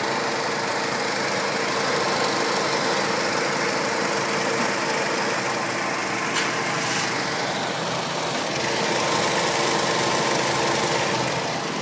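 Car engine idling steadily with a steady hum, running a newly fitted high-amperage alternator.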